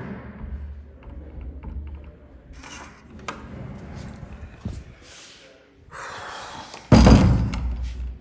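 Digital keypad door lock being worked: a run of short, quiet keypress sounds as the code is entered, then the door is unlatched and opened. About seven seconds in comes a sudden loud door thud, the loudest sound here.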